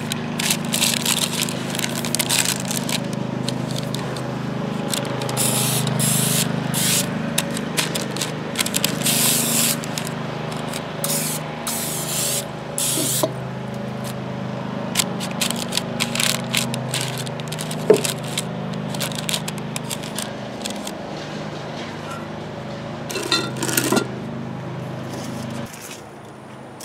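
Parchment paper crinkling and rustling as it is pressed into a cast iron Dutch oven, with hissing spurts of cooking spray onto it. A steady low mechanical drone runs underneath and stops near the end.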